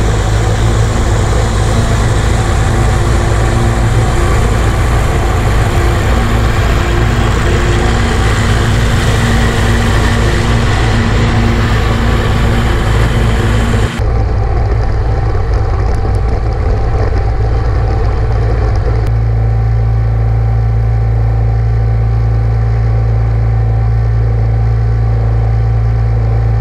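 Zero-turn riding mower's engine running steadily and loudly at close range, with a deep low hum. About halfway through the sound turns duller as the hiss drops away, and a few seconds later the low hum grows stronger.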